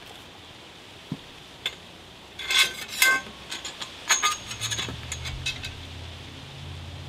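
Metal tube legs and a long threaded metal rod clinking and rattling against each other as the rod is slid through the legs of a compost tumbler stand. The clinks come in scattered knocks, then a dense clatter a few seconds in, with a short metallic ring about four seconds in.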